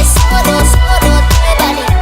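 Background music with a heavy bass beat and a steady rhythm.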